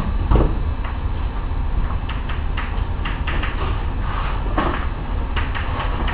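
Chalk writing on a chalkboard: short, irregular taps and scrapes as letters are drawn, over a steady low hum.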